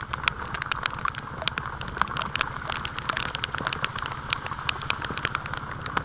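Motorcycle engine running steadily on the move, a fast even low pulse, with scattered sharp clicks and ticks heard throughout over it.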